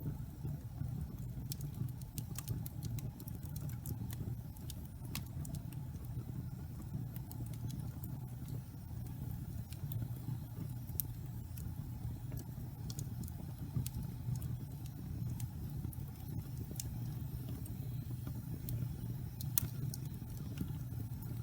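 Wood fire burning in a fireplace: irregular sharp crackles and pops from the logs over a steady low rumble of the flames.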